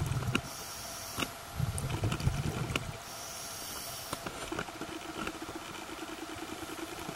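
A diver's scuba regulator breathing underwater: a hiss of air drawn through the demand valve, a low bubbling rumble of exhaled bubbles, then a second hiss, followed by a quieter stretch of steady underwater noise.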